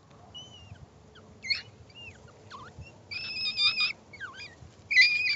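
Puppies squealing and yelping in rough play, one pup crying out as its littermates bite and pull at its ear. Short scattered high squeaks at first, then louder, longer high-pitched squeals from about three seconds in.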